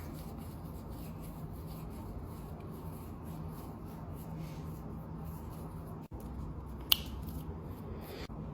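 Bangles and rings clicking and rubbing together lightly in a string of faint clicks, with one sharper click about seven seconds in, over a steady low hum.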